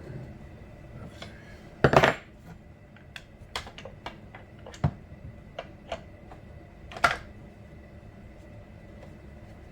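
Light metal clicks and clatters of a chainsaw chain and bar being handled, with louder rattles about two seconds in and again about seven seconds in.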